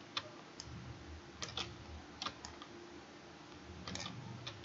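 Scattered sharp clicks of a computer mouse and keyboard, about eight in all, several coming in quick pairs.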